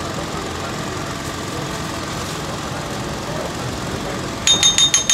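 Steady engine-like rumble and hum under the stall, then a quick run of about five sharp, ringing metal-on-metal clinks near the end, a metal ladle or spatula knocking against the cooking pots and iron tawa.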